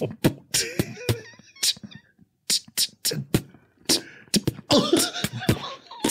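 Beatboxing: a mouth-made beat of sharp kick- and snare-like hits, breaking off briefly about two seconds in, with wavering vocal mouth noises mixed in around one second and again near five seconds.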